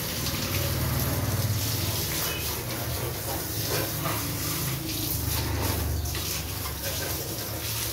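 Water from a garden hose spraying onto a motorcycle, a steady hiss and splash as the stream hits the engine, rear wheel and exhaust and runs onto the floor.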